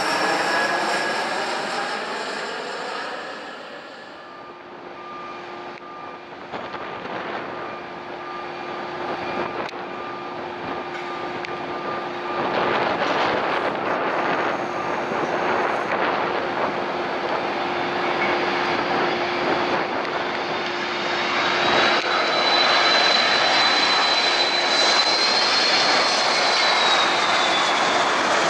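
Jet airliners on approach. A regional jet passes overhead, its engine sound falling in pitch and fading over the first few seconds. Later another jet's engines grow louder, with a high fan whine that bends down near the end.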